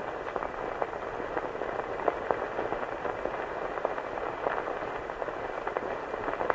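Worn film soundtrack noise, as of an old newsreel print running: a steady hiss with irregular crackles and pops.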